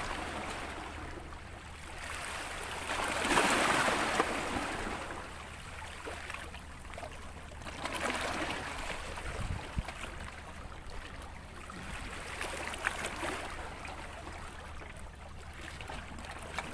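Small sea waves washing in at the shore, the hiss of water swelling and falling back about every four to five seconds, loudest a few seconds in.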